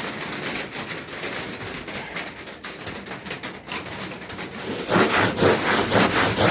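Sandpaper rubbed back and forth by hand over a truck toolbox, starting about five seconds in as a run of quick scraping strokes, about three a second. Before that there are only light handling scrapes and clicks.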